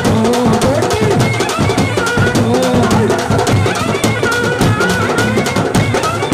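Kolatam folk music: drums beating with a fast run of sharp clicks over a wavering melody.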